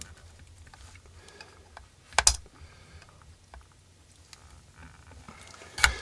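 Small clicks and taps of hands and tools working a stuck part loose on an ECM blower motor, with two short, louder knocks about two seconds in and near the end.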